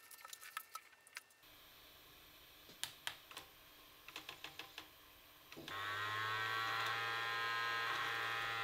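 Light clicks and taps of parts and connectors being handled. About six seconds in, a DVD-ROM drive's electric motor starts whirring steadily with a high whine.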